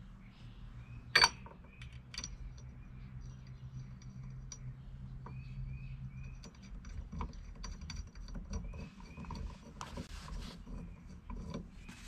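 Small metal hardware clicking and tinkling as hex-head screws and an Allen key are handled and the screws are threaded into a steering-wheel quick-release base on its hub. There is one sharp click about a second in, and a faint low hum that stops about halfway.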